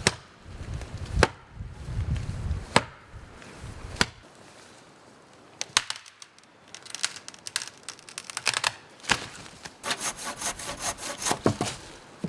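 Wood being worked by hand: several sharp cracks of sticks or branches snapping, then a quick run of repeated strokes, several a second, near the end.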